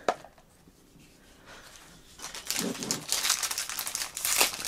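Crinkling and rustling of toy packaging being handled, starting about two seconds in after a near-quiet pause and going on in a dense crackle.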